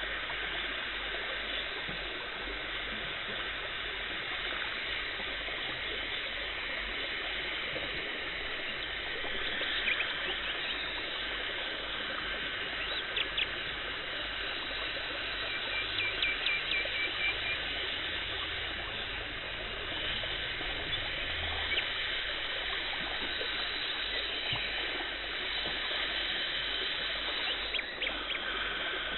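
Dental cleaning equipment: a steady, water-like hiss of suction and water spray as tartar is removed. A few sharp clicks are heard, with a quick run of ticks about halfway through.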